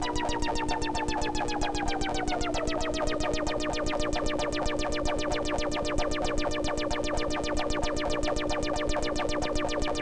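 Instrumental background music: a steady low drone under a fast, even pulse, with a tone that slides down in pitch over the first three seconds or so and then holds.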